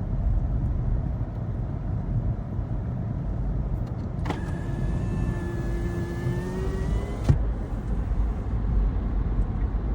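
Low, steady rumble of a car heard from inside the cabin while driving. About four seconds in, a power window motor whines for about three seconds, its pitch rising slightly, and stops with a click.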